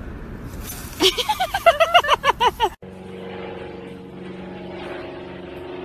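Golden retriever puppy giving a quick string of high yips and whines, each call rising and falling in pitch, for about two seconds. Then it cuts off abruptly and a steady hum with several low tones takes over.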